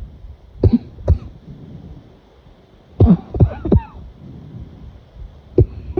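A person coughing in short fits: two coughs about a second in, a fit of three or four a little after the middle, and one more near the end.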